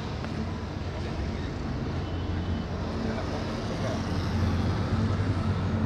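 Low, steady drone of military aircraft flying overhead, slowly growing louder as they come closer.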